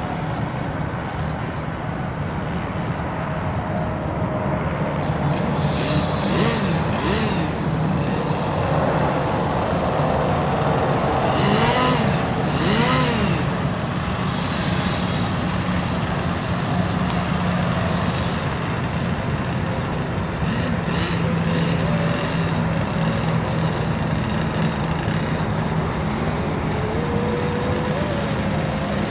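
Radio-controlled racing boats running at speed, their motors a steady high-revving note with several quick swells up and down in pitch as boats sweep past.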